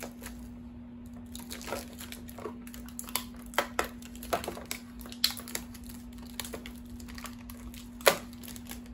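Protective plastic film being peeled off a guitar pickguard: irregular crinkling and crackling, with a sharper crackle near the end.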